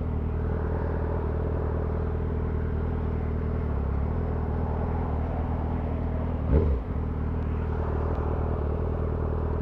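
2003 Yamaha R6's inline-four engine running at a steady speed while riding, with wind noise over it. A brief louder blip comes about two-thirds of the way through.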